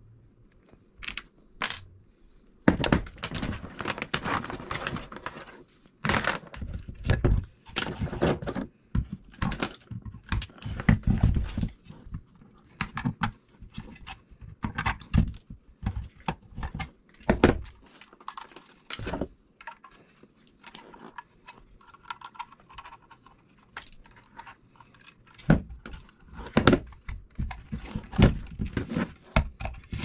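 Diagonal cutters snipping the wires and connectors off a vacuum cleaner motor, with irregular clicks, snaps and the clatter of hand tools and wire offcuts set down on the cart's tray.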